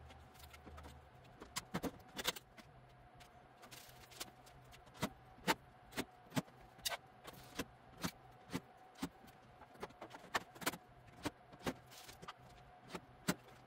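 Sharp metallic clicks and taps, irregular at roughly one or two a second, as the steel panels and hardware of a metal storage cabinet are handled and fitted together, over a faint steady hum.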